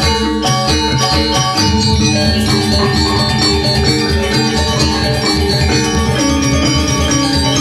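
Balinese gamelan gong ensemble playing a tabuh: metallophones, kettle-gong chimes and gongs struck together, many ringing metallic notes over a regular low beat.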